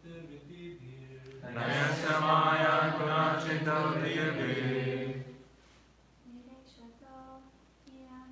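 Sanskrit verse chanted in call and response. A single male voice holds the tune at first, then a group of voices joins in louder, from about a second and a half in to about five seconds. After a short pause, a quieter lone voice starts the next line.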